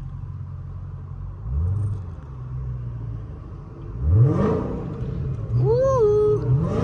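Supercharged V8 of a Dodge Hellcat Redeye rumbling at low speed in stop-and-go traffic, with two quick throttle blips that rise in pitch, the second and louder one about four seconds in. A short wavering high tone follows near the end.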